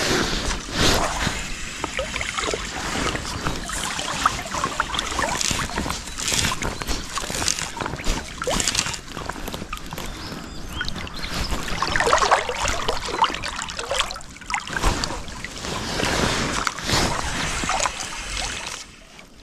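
Choppy river water sloshing and lapping around an angler wading deep in the current, coming in irregular surges.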